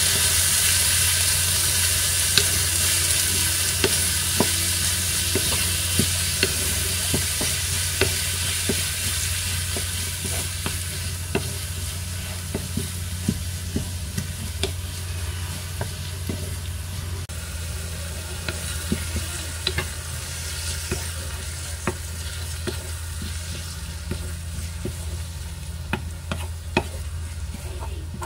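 Chopped tomatoes, onion and green onion sautéing in hot oil in a nonstick pan, sizzling as a wooden spatula stirs them and scrapes and taps against the pan. The sizzle is loudest at the start and eases off gradually.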